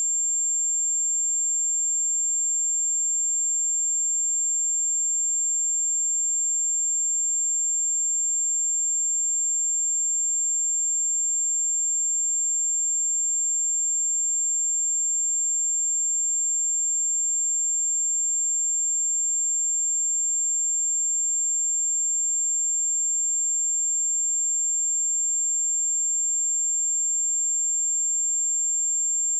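A 7361 Hz sine wave test tone: one steady, high-pitched pure tone held at a constant level.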